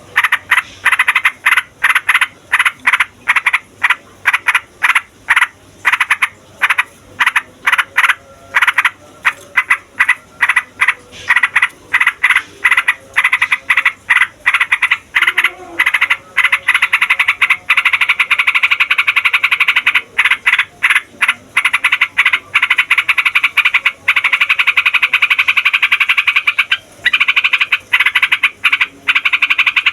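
Yellow-vented bulbul (trucukan) singing loudly in rapid, chattering runs of short notes. About halfway through these merge into long, nearly unbroken rolls, the 'ngeroll panjang' song used as a lure and tutor for other trucukan.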